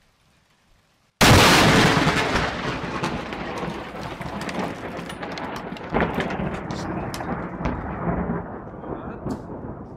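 Thunder from a close lightning strike: a sudden, very loud crack about a second in, then a long rumble that slowly fades, with scattered crackles in it.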